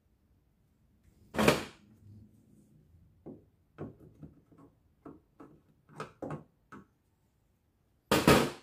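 Plastic clicks and knocks from the top panel of a top-loading washing machine being handled and pressed into place: a loud scrape about a second and a half in, a run of short taps and clicks, then another loud knock-like noise near the end.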